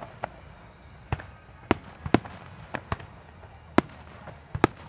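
Fireworks display: aerial shells bursting in a string of sharp bangs at uneven intervals, about eight in the space of five seconds.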